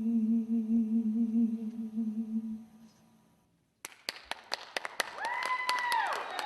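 The song's last note sung and held with a slight waver, fading out about three seconds in. After a moment of silence, the audience starts clapping, joined by high rising-and-falling cheers.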